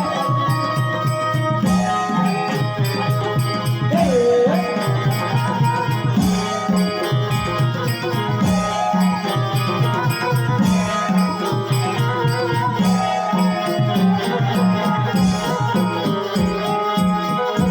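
Instrumental passage of Konkani jakhadi folk music: a fast, even hand-drum beat with jingling rattles under a sustained melody.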